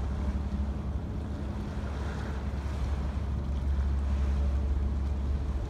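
Wind buffeting the microphone over water lapping, with a steady low engine hum from a harbour ferry crossing the water.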